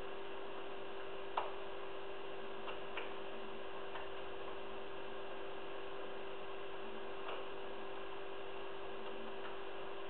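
Steady electrical hum and hiss, with a handful of faint, short clicks from picking a seven-disc padlock. The clearest click comes about a second and a half in.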